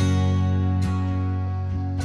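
Background music: plucked guitar notes over sustained tones.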